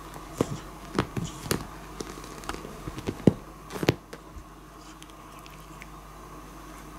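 A long-haired cat playing on a blanket right at the microphone: a quick string of sharp taps, scuffs and knocks through the first four seconds as it paws and bumps about, then fading to a steady background hum.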